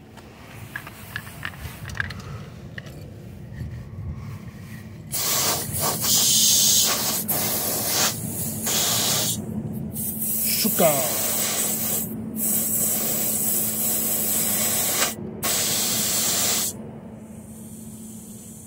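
Air hissing from a truck tire's valve stem in several spurts as a dial pressure gauge is pressed onto it. It starts about five seconds in, breaks off briefly a few times, and stops shortly before the end.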